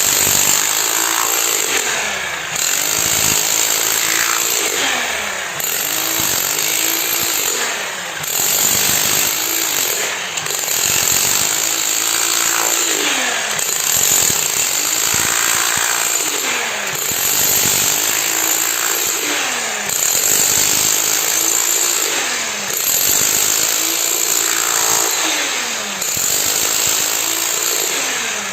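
Concrete-pouring machinery running loudly in a repeating cycle. A steady high whine cuts out briefly about every two to two and a half seconds, and each cycle has a low pitch that bends downward.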